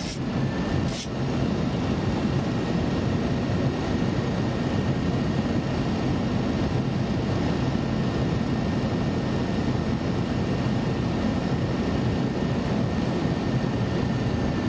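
Steady flight-deck noise of a Boeing 737 on final approach, the rush of air and engines, with two sharp clicks about a second apart near the start.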